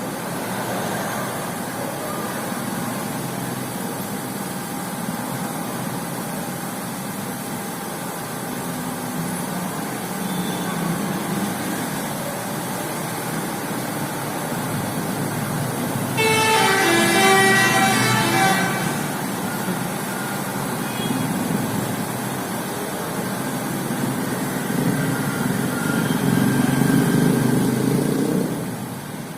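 Heavy truck engine running steadily. About halfway through, a telolet multi-tone musical horn sounds a short stepping melody for about three seconds. Near the end the engine grows louder.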